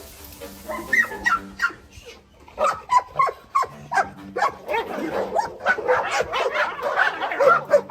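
Dog whining and yipping in a rapid string of short, high cries that grow more frequent after the first couple of seconds.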